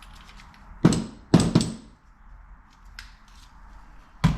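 Sharp metallic clanks of transmission gears and washers knocking together as they are handled on the shaft: three close together about a second in, then one more near the end.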